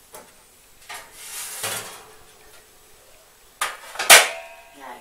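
Metal kitchen clatter as a tray of tarts goes into the oven: a soft rush about a second in, then two sharp metallic bangs, the second the loudest, with a short ringing after it.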